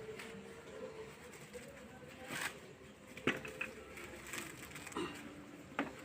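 Coconut being husked by hand: about five separate sharp knocks and scrapes against the fibrous husk, spread out over a few seconds.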